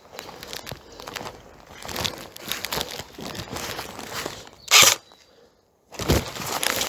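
Footsteps crunching and crackling through dry forest leaves and twigs, with one loud, brief rustle against the microphone just before five seconds; the sound then drops out for under a second before the crunching resumes.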